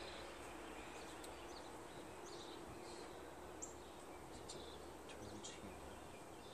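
Faint outdoor ambience with a few short, high bird chirps scattered through it.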